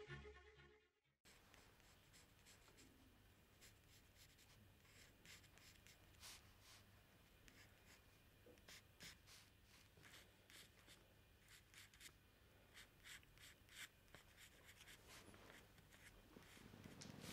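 Bowed string music cuts off about a second in, leaving near silence: quiet room tone with faint, irregular rustles and ticks.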